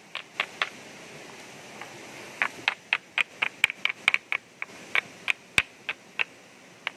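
One hand-held rock knocked repeatedly against another, making sharp, high stone-on-stone clacks. There are three at first, then after a short pause a quick run of about three or four a second, thinning out near the end.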